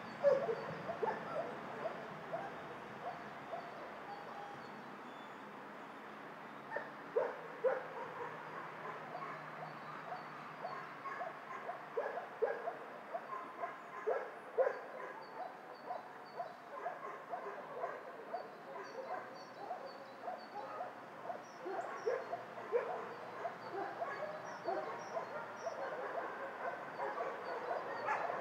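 Many dogs in a shelter's kennels barking at one another, with short, irregular barks and yips at different pitches that overlap. There is a lull a few seconds in, and the barking grows busier toward the end.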